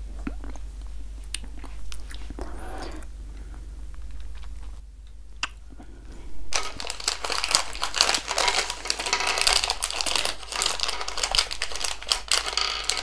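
Someone crunching and chewing candy-coated M&M's chocolate candies. It is faint and sparse for the first half, then turns into a dense, crackly crunching from a little past halfway.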